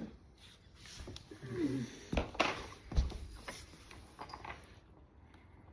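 Scattered knocks and clatters of metal bar stool parts and tools being handled during assembly, the two sharpest a little past two seconds and about three seconds in.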